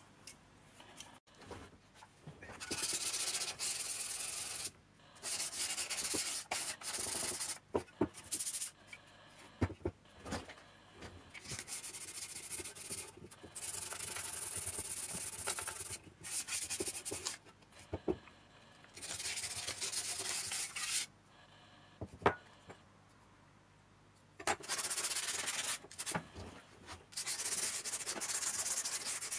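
Hand-sanding the painted steel housing and flange ring of a Lotus Elise S1 heater blower with a sanding sponge: quick back-and-forth strokes in bouts of one to four seconds with pauses between, and a few light knocks in the gaps.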